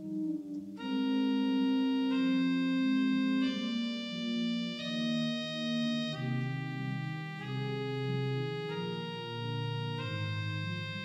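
Church organ playing slow music of held chords that change together about every second and a half, each note sounding steadily without fading.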